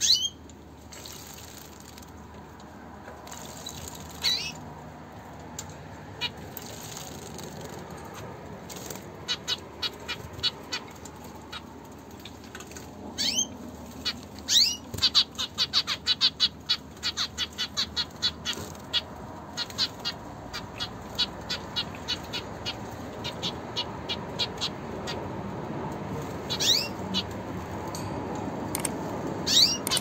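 Zebra finches bathing in a shallow water dish: runs of rapid splashing and wing-fluttering, with a few short chirping calls.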